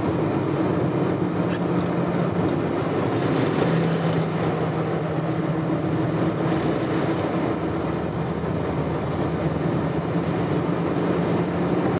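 Steady driving noise from a vehicle travelling along a snow-covered highway: tyre and road rush with a low, even engine hum.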